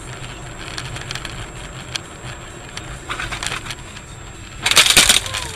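Car crash: a loud, crunching impact near the end, after a few seconds of crackly noise and scattered clicks.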